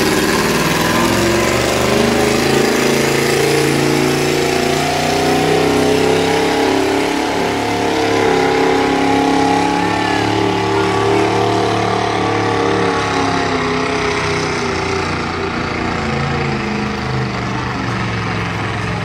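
V8 engine of a modified Oliver pulling tractor running hard under load as it drags a weight sled down the track. Its note holds fairly steady, then eases slightly near the end of the run.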